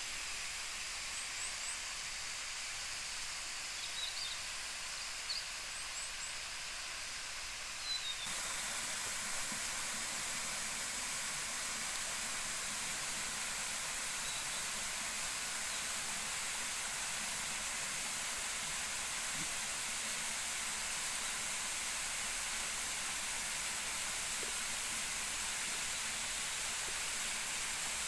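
Rushing water of a stream or waterfall, a steady hiss with a few faint high chirps over it at first; about eight seconds in it cuts to a louder, fuller rush.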